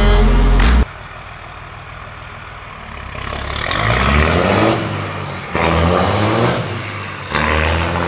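Background music cuts off under a second in. Then a straight-piped Cummins turbo diesel idles and is revved three times, each rev rising in pitch, the last two coming in suddenly.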